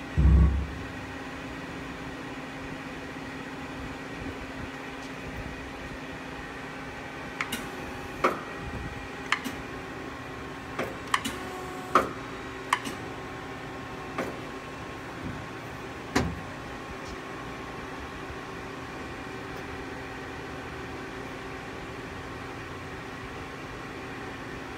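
Hurco TM6 CNC lathe powered up and running through its axis moves: a steady machine hum with several steady tones, a heavy thump at the very start, then a scattered run of about a dozen sharp mechanical clicks and clunks in the middle as parts move and lock into place.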